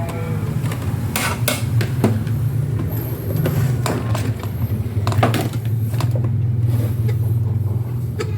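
Scattered metal clinks and taps from handling the opened rice cooker's parts while checking its sensor wiring, over a steady low engine hum.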